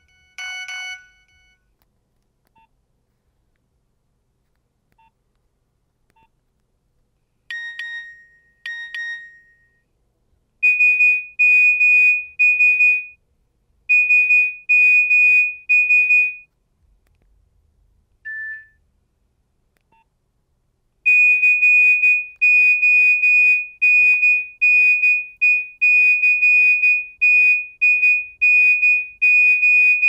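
A Nokia 1200's loudspeaker plays previews of its monophonic message-alert tones as they are selected in the menu. A short chime comes at the start and two pitched notes come about eight seconds in. Then come runs of rapid, trilling high beeps, a single short beep, and a long run of rapid high beeps that lasts to the end. Faint keypad tones sound between them.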